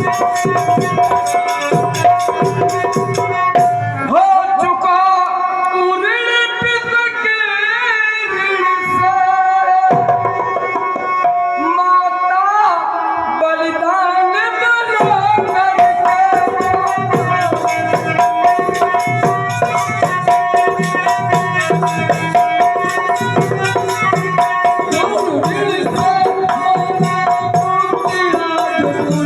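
Indian devotional music with fast, continuous hand-drum strokes under a steady held tone. A wavering melody line glides in about six seconds in and again around twelve seconds.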